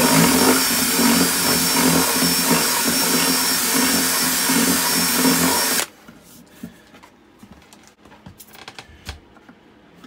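Cordless DeWalt drill running at speed, its bit reaming around the edge of a 1-inch hole in a drawer front to widen it. The drill stops suddenly about six seconds in, leaving a few faint clicks and knocks.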